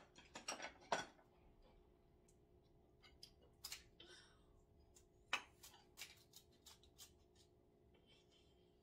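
Kitchen scissors snipping through cooked king crab shell: faint, sharp cracks and clicks at irregular intervals, a cluster in the first second and a louder one at about five seconds.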